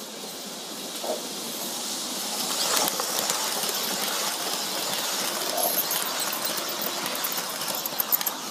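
Lionel O-gauge Amtrak Dash 8 locomotive and Superliner cars running on three-rail tinplate track. The wheels and motor clatter and rush, growing louder over the first few seconds as the train nears, then run on as it passes close by, with a run of sharp clicks near the end.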